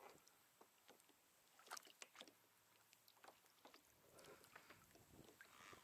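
Near silence: faint water lapping against a kayak hull, with a few light clicks and knocks.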